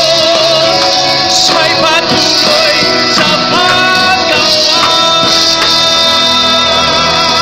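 Band playing a Tagalog gospel song, with long held melody notes over a steady accompaniment.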